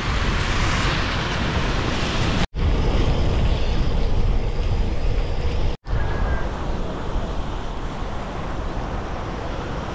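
Wind and heavy rain rushing over the microphone of a camera on a moving bicycle: a steady, loud roaring hiss, cut out for a split second twice, about two and a half and six seconds in.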